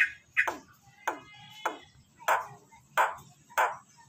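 Jalak Nias (a myna/starling) calling: a steady series of sharp, loud calls, each sweeping quickly downward in pitch, repeated a little under twice a second.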